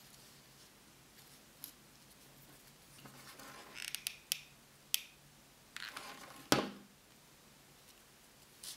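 Paper and craft pieces being handled off the tabletop: soft paper rustles and a few sharp clicks, with one louder knock about six and a half seconds in.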